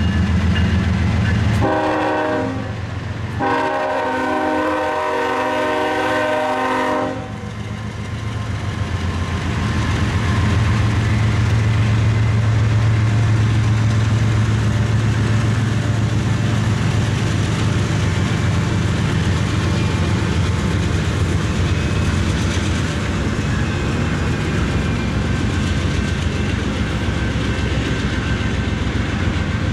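Freight train's diesel locomotives sounding the multi-tone horn for a grade crossing, a short blast and then a long one that cuts off about seven seconds in. The locomotives' low engine drone then swells as they pass, followed by the steady rumble and wheel clatter of covered hopper cars rolling by.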